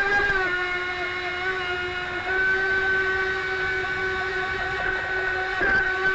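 Scale RC jet boat's drive running under way: a steady high whine from the motor and jet unit, over the rush of water. The whine steps up in pitch right at the start and shifts slightly about two seconds in and again near the end as the throttle changes.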